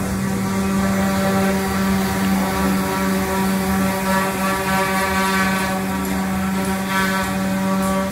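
A machine running with a loud, steady hum that holds one constant pitch, cutting off abruptly at the end.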